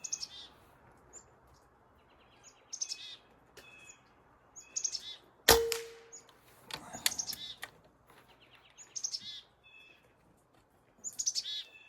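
A single sharp shot from a moderated Benjamin Armada PCP air rifle about halfway through, with a brief metallic ring. Chickadees call repeatedly around it in short high note runs.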